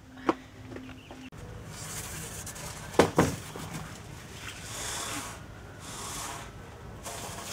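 Wooden logs knocking together twice in quick succession about three seconds in, then rustling scrapes as the logs are shifted over gravel.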